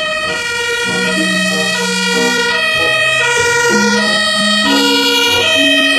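German fire engine's two-tone siren, alternating steadily between a high and a low note.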